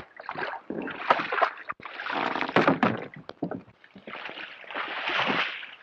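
Wooden oars knocking and clattering against a rowing skiff's rowlocks and hull as they are handled, with water splashing as the blades go in.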